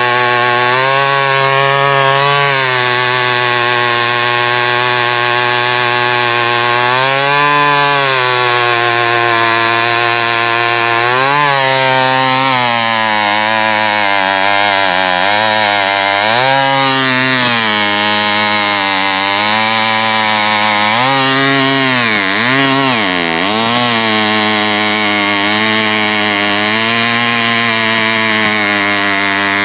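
Homelite XP 1100 G two-stroke chainsaw with a 25-inch bar and half-inch chipper chain running hard in a cut through a thick oak log. Its engine pitch sags under load and picks back up again and again, dipping deepest a little over two-thirds of the way through.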